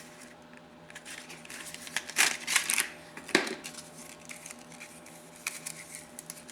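Small hand tool handled at close range: an irregular run of clicks and rattles a second or two in, with one sharp click partway through, then a few faint ticks. The tool is a 1/4-inch flex-head ratchet being turned over in the hands.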